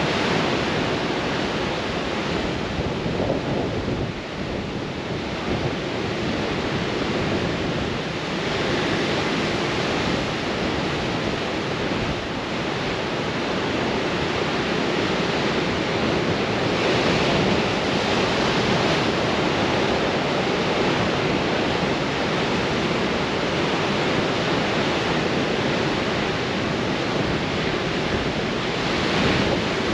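Ocean waves breaking on rocks in a continuous rushing roar, swelling louder every several seconds as sets come in, with strong wind buffeting the microphone.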